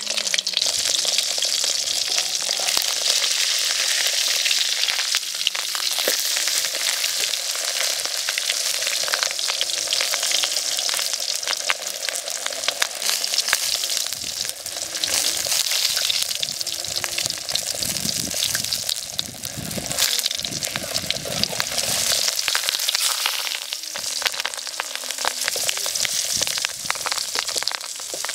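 Banana-leaf parcel of stingray frying in hot oil in an open metal wok, a steady sizzle full of fine crackles.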